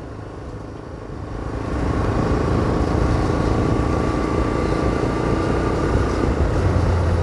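Vehicle engine and road noise while driving along a city street, growing louder about a second and a half in and then holding steady.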